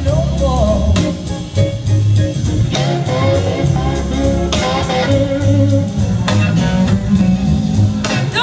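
Live blues-rock band playing an instrumental passage between vocal lines: electric guitar playing over bass guitar and a steady beat.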